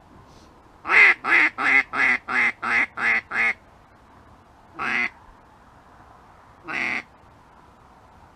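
Mallard duck call quacking loudly: a quick series of eight quacks that trail off in loudness, like a hen mallard's hail or greeting call, then two single quacks a couple of seconds apart.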